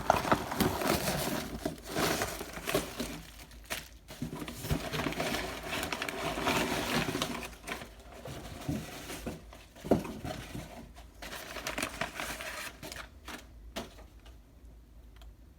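Packaging crinkling and rustling as a box is unpacked by hand, with scattered small knocks and clicks. The handling thins out in the last few seconds.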